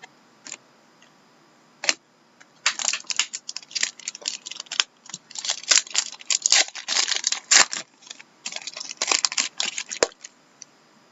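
Trading cards being handled and flipped through: one click, then a long run of quick, crisp clicks and rustles that stops near the end.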